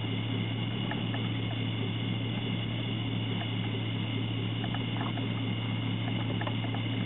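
A steady low engine hum, as of the pickup idling, with a steady high-pitched chorus above it and a few faint ticks.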